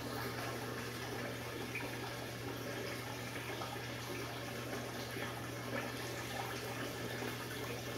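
Water swirling and trickling steadily in a small vortex fountain, a whirlpool turning in a clear water-filled cylinder, with a steady low hum underneath.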